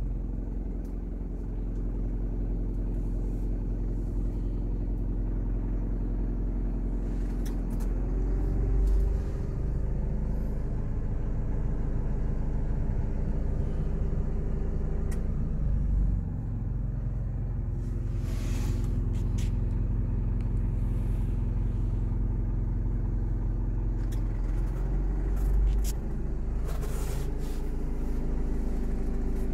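Mitsubishi Fuso Canter's 3.9-litre turbo diesel idling steadily, heard from inside the cab, its low hum shifting slightly in pitch a few times.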